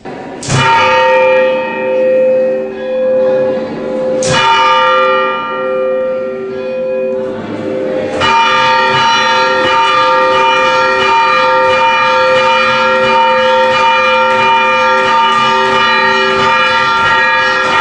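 Rope-rung church bell: two slow single strokes about four seconds apart, each left to ring out, the slow toll for the dead on the small, higher-pitched death-knell bell. From about eight seconds in, the strokes come fast and continuous over the ringing.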